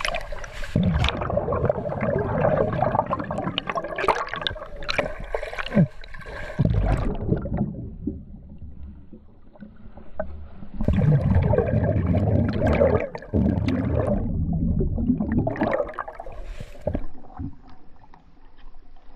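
Muffled underwater rushing and gurgling of a swimmer's kicks and rising air bubbles, heard through a camera's waterproof housing below the surface. It comes in two long loud stretches with a quieter spell between them.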